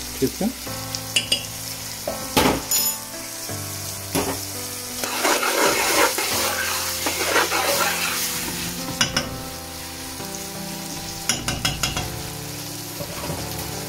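Chopped onions sizzling in hot oil in an aluminium pot over high heat, while a metal spoon stirs them, scraping through the onions and knocking against the sides of the pot several times, with a louder stretch of stirring midway.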